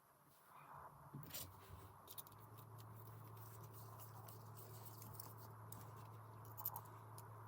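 Faint, scattered clicks and taps of small metal ratchet parts being handled and fitted together, over a low steady hum that starts about two seconds in.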